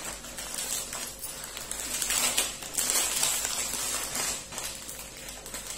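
Marie Gold biscuit packet being torn open by hand, its plastic wrapper and foil inner lining crinkling and rustling irregularly as the stack of biscuits is pulled out.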